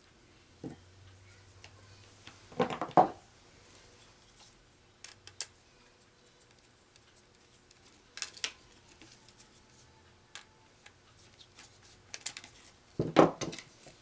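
Small metal clicks and clatter from handling a crimped wire terminal and a relay, with louder bursts of clicking about three seconds in and again near the end.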